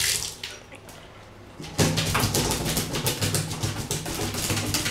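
A Pomeranian digging at the floor of an empty bathtub, his claws scratching rapidly on the tub surface. It starts suddenly about two seconds in and goes on as a dense run of scrapes; this digging is his way of asking for the water to be turned on.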